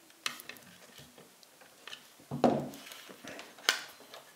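Clicks, taps and rattles of a plastic multimeter case being handled and worked with a screwdriver, with test-lead plugs pushed into its jacks. Two louder knocks come about two and a half and three and a half seconds in.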